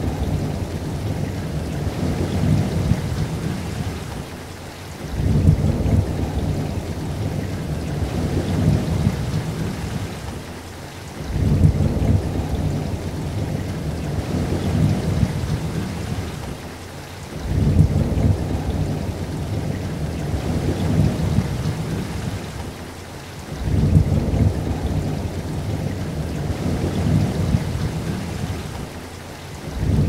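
Rain falling, under a low rumble that comes on suddenly about every six seconds, runs for about five seconds and drops away, over and over.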